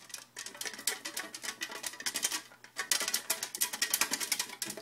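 A fast, irregular run of clicks and rustles, pausing briefly twice, from hands working during a raffle randomization.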